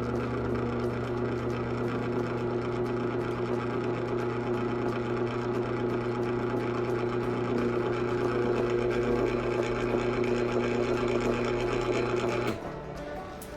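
Small geared motor with its gearhead running with a steady whir and hum, cutting off suddenly about twelve and a half seconds in.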